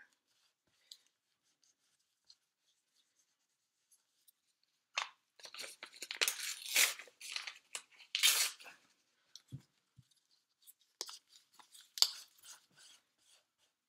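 Paper map being torn into small pieces by hand. It is quiet at first, then a run of rips and paper rustling begins about five seconds in, with a few sharper tears near the end.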